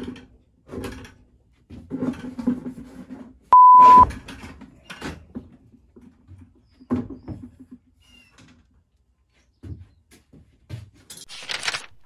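A loud, steady, half-second beep of a censor bleep about three and a half seconds in, over scattered knocks and clatter of a plastic 5-gallon bucket being handled and fitted onto a wooden frame. A brief hiss comes near the end.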